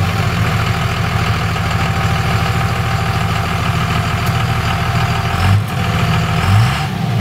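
A 24-valve 5.9-litre Cummins inline-six turbo diesel in a 2002 Dodge Ram 2500 idling steadily through a Magnaflow exhaust, with a short rise in revs near the end.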